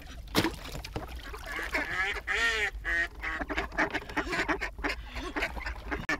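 Live call ducks quacking in repeated runs of short, nasal calls, beginning about two seconds in. A single sharp knock sounds about half a second in.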